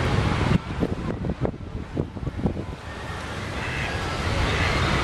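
Wind buffeting the microphone: a noisy low rumble and hiss with scattered short crackles, easing after about half a second and building again toward the end.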